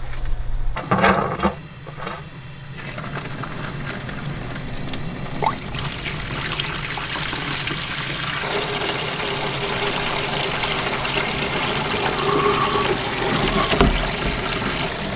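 Freshly pressed sugarcane juice pouring in a steady stream from a pipe into a plastic tub, splashing into the foamy juice as the tub fills, growing slightly louder. A couple of short knocks come at the start, before the pouring begins.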